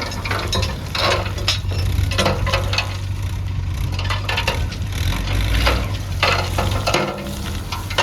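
JCB 3DX backhoe loader's diesel engine running steadily, with repeated irregular clattering and rattling as it works loading a tractor trolley.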